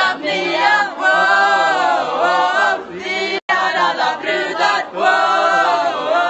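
A small group of young men and women singing together loudly in unison. The sound cuts out for an instant about halfway through, then the singing resumes.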